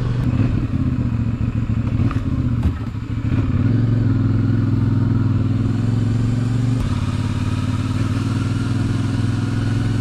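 CFMoto 450MT's parallel-twin engine running on the move, easing off briefly about three seconds in, then pulling steadily.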